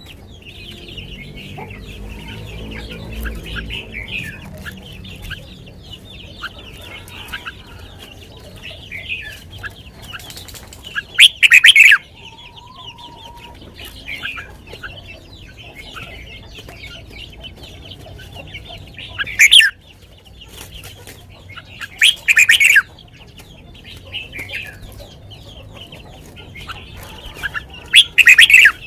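Red-whiskered bulbul singing loud, short song phrases, four of them spaced through the clip, over softer chirping from other birds.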